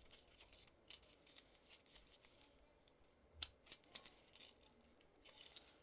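Small plastic tackle packets of carp rigs being handled, with faint crinkling and light clicks and one sharper click about three and a half seconds in.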